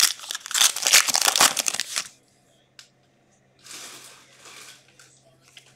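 Foil wrapper of an Upper Deck SP Authentic hockey card pack crinkling as it is torn open by hand, for about two seconds. After that come fainter rustles as the cards are handled.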